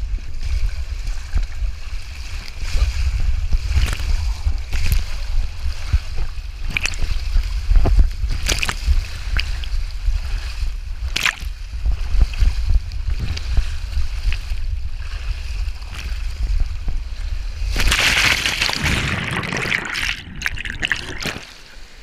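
Rider on a foam mat sliding down a fibreglass waterslide, with rushing water, a steady low rumble and occasional sharp knocks. About eighteen seconds in comes a loud splash as the mat runs into the pool, and the sound then drops to quieter water.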